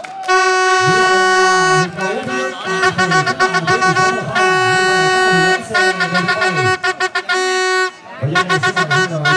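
A horn sounding one steady note, loud: long held blasts alternating with runs of rapid short toots, a brief break near the end, then another held blast. Voices are heard under it.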